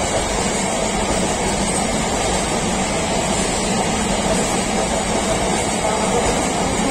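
Container freight train's wagons rolling past close by: a steady, loud rumble of wheels on the rails.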